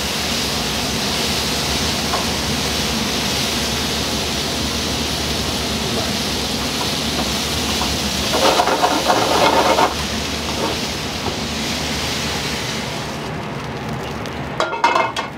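A steady hiss, with a louder, busier stretch of sound about eight seconds in that lasts a second and a half, and a brief burst near the end. The high part of the hiss falls away about thirteen seconds in.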